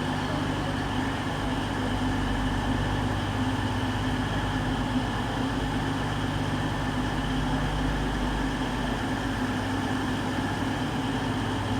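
East Midlands Railway Class 222 Meridian diesel train standing at the platform with its engines idling, a steady low hum with no change in pitch.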